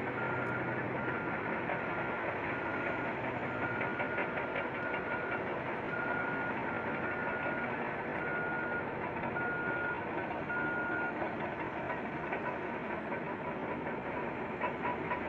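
Backup alarm of heavy mining equipment beeping steadily about once a second, stopping about eleven seconds in, over the continuous noise of large diesel machinery working.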